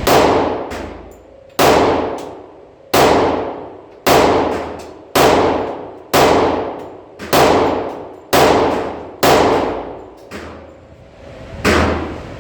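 Glock 20 10mm pistol firing ten shots, roughly one a second, with a slightly longer pause before the last. Each loud crack rings on and fades in the echo of an indoor range.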